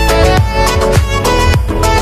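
Background music with a steady beat and a held, pitched melody line over it.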